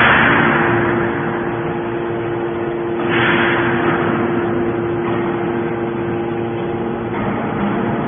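Hydraulic scrap-metal baler running: a steady hum with a constant tone, and two hissing rushes, one at the start and another about three seconds in, each fading away over about a second.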